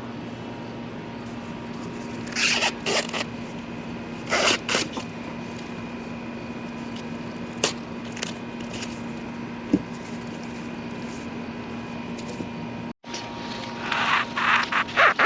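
Corn husks and leaves rustling and tearing in short bursts as ears of corn are handled and pulled, over a steady low hum.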